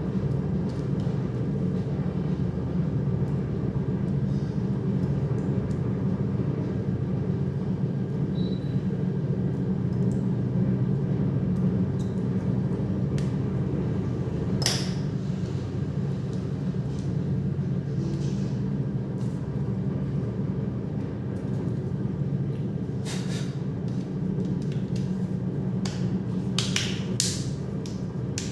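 Steady low rumble of background noise, with a few small sharp clicks of a phone's plastic parts being handled and snapped together, a single one about halfway through and several close together near the end.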